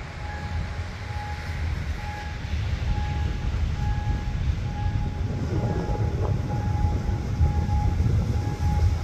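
Approaching diesel locomotive hauling a passenger train, its low engine rumble growing louder. Over it, a level-crossing warning signal beeps steadily, about three beeps every two seconds.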